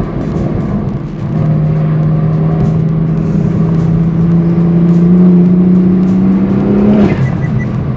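BMW M4 F82's S55 twin-turbo inline-six breathing through a REMUS exhaust, heard from inside the cabin, pulling steadily under acceleration with its pitch rising for about six seconds. Near the end the note drops off sharply.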